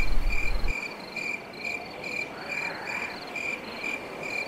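Crickets chirping in an even rhythm, about two short chirps a second, as a night ambience. A low whooshing sound, which goes with the magic breath being blown, cuts off under a second in.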